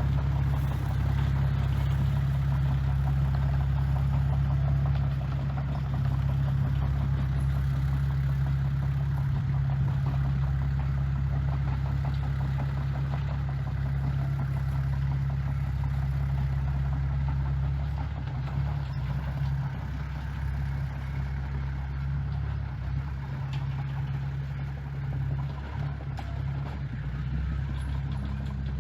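Diesel engine of heavy construction machinery running steadily with a low, even hum, a little quieter and less even in the last third.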